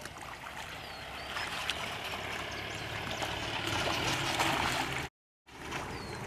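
Water splashing and sloshing as people wade through a shallow pond, growing a little louder toward the end. The sound cuts out completely for about half a second about five seconds in.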